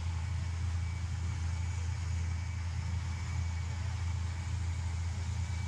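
A steady low rumble of city background noise, unchanging throughout.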